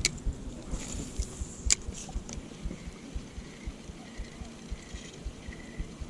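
Spinning fishing reel being handled and cranked: a few sharp clicks, the clearest a little under two seconds in, then soft winding as the handle turns, over a low rumble of wind and handling on the microphone.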